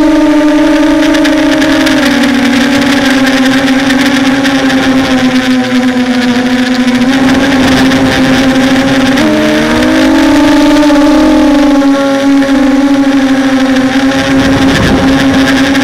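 Hexacopter's electric motors and propellers whining steadily while it flies. The pitch steps down and up as the throttle changes, and about nine seconds in it splits briefly into several close pitches that glide up and merge again, the motors working against gusty wind.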